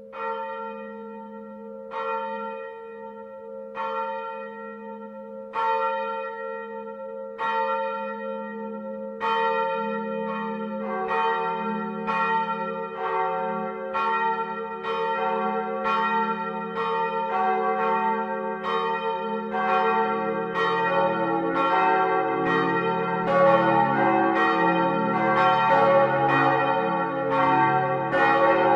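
Church bells ringing over a steady hum. Single strokes come about every two seconds at first; about nine seconds in more bells join and the strokes come faster, and a lower bell joins around twenty seconds in, building into a full, dense peal.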